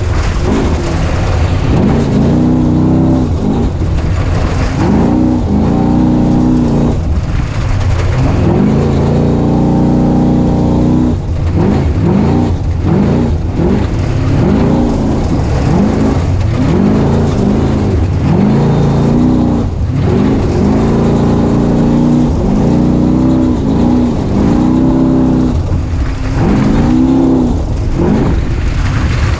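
Off-road racing vehicle's engine revving up and dropping back again and again as it is driven hard over rough desert terrain, under a constant low rumble.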